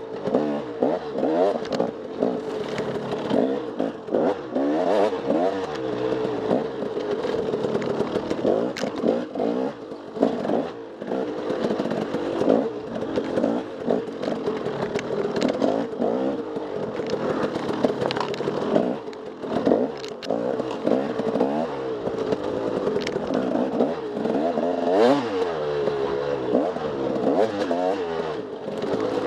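Dirt bike engine revving up and down continually as it is ridden off-road, with scattered knocks and clatter from the bike.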